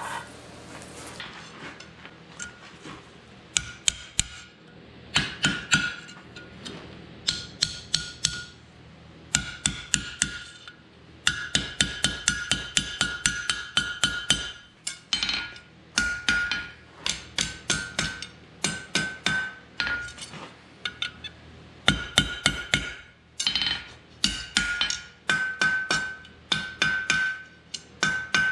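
Blacksmith's hand hammer striking a hot, split 3/8-inch round steel rod on an anvil to spread the split ends apart. The blows come in quick runs and the anvil rings after each one. They begin about four seconds in.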